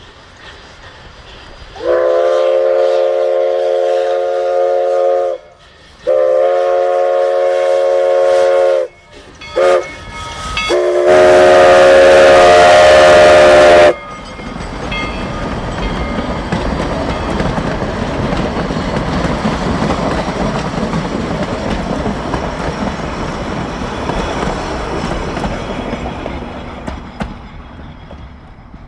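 Steam whistle of narrow-gauge Denver & Rio Grande No. 425, an 1895 Baldwin consolidation, blowing long, long, short, long, the grade-crossing signal, the last blast the loudest with a hiss of steam over it. The train then rolls past, a steady rumble and clatter of wheels and cars that slowly fades.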